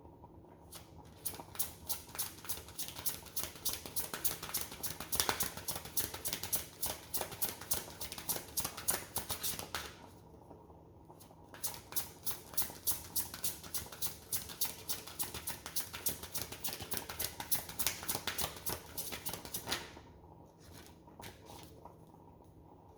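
A deck of reading cards being shuffled by hand: rapid card-on-card slaps and clicks in two runs of about nine seconds each, with a short pause between them.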